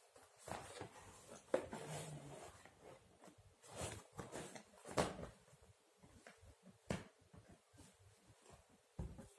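Cardboard box and plastic packaging being handled and opened, with faint rustling and crinkling broken by a few sharp clicks.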